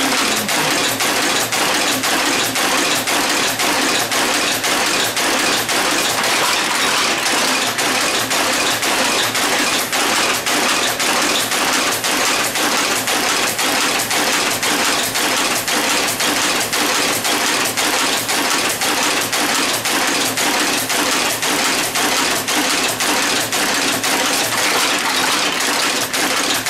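A 19th-century type-casting machine running and casting metal type: a steady, even mechanical clatter at about three strokes a second.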